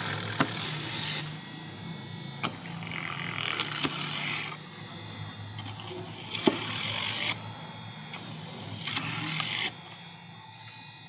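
Small electric motor of a homemade drill running with a steady low hum, broken four or five times by about a second of louder, harsher noise, with a few sharp clicks in between.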